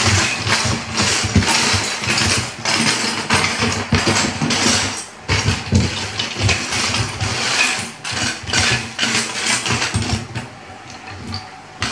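A large homemade Lego spinning top whirling on a hard tabletop, rattling and clattering as it grinds among loose Lego bricks. The noise eases off about ten seconds in as the top slows.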